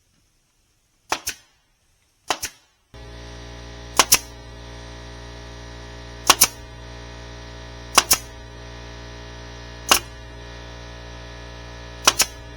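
Nails being driven by a nail gun into oak framing: seven sharp cracks, most of them quick doubles, about two seconds apart. A steady machine hum starts suddenly about three seconds in.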